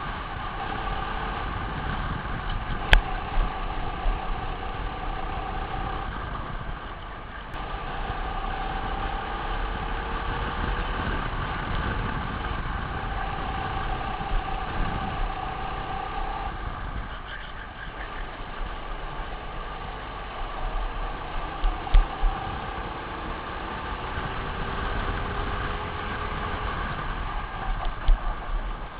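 Racing kart engine heard from onboard at speed, its pitch rising and falling as it accelerates and eases off, dipping twice. A few sharp knocks stand out, one about three seconds in and others near the end.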